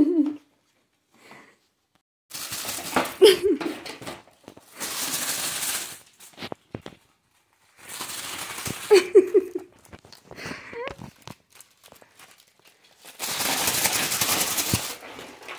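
Plastic packaging crinkling and rustling in several long bursts as dogs tear at and shake wrapped treats from a gift box. A few brief vocal sounds come in between.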